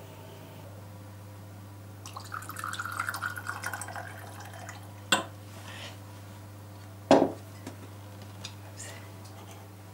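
Clear spirit poured from a glass bottle into a small stemmed glass, a fluttering pour of about two seconds. A sharp clink follows about five seconds in, and a louder knock on the counter about seven seconds in.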